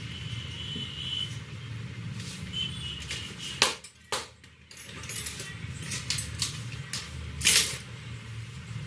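Sharp slaps and lighter taps of hands on a head during a head massage, two of them much louder than the rest, over a steady hum of traffic.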